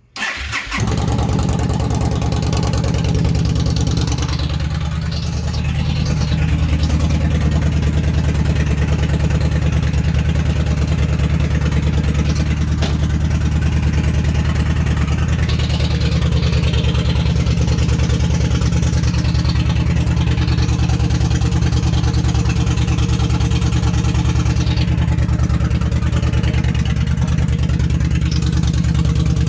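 2011 Yamaha Stryker's V-twin engine with its exhaust removed, starting up within the first second and then idling steadily and loud.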